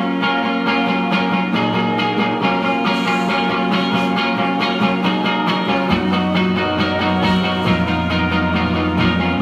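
Indie rock band playing live: electric guitars, electric bass and a drum kit, with a steady beat; the bass line moves to lower notes about six seconds in.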